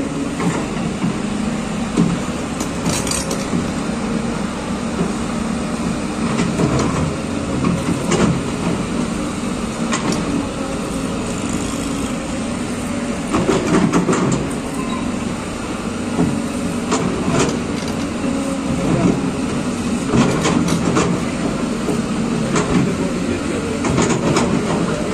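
Tracked excavator's diesel engine running steadily under load, with repeated scrapes and knocks as its steel bucket digs into soil and stones.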